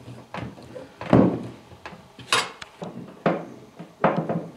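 Irregular knocks and metallic clinks of a steel carrier, screws and a hand tool being handled and fastened against the wooden frame of a bench seat. One clink rings out clearly about halfway through, and the loudest knock comes about a second in.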